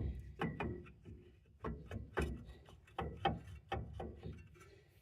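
Heavy brake rotor being worked back onto the hub over the parking-brake shoes: a run of irregular metal knocks and clicks.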